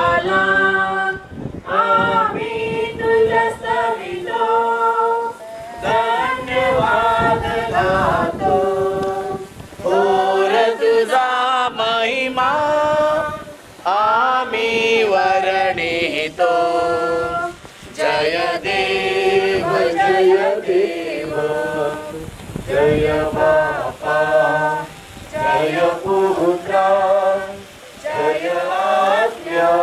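A group of voices singing a hymn unaccompanied, in sung phrases of a few seconds each with short breaks between lines.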